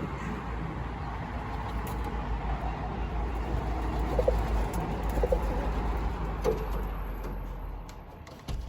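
Pigeon cooing a few times over a steady low rumble.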